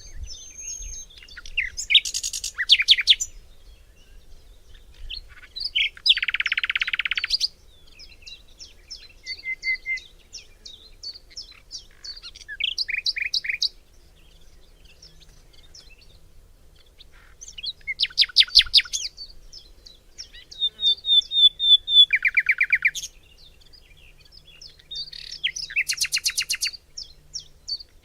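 Forest birdsong: several birds singing, with loud rapid trills and quick chirp series coming every few seconds between quieter single notes.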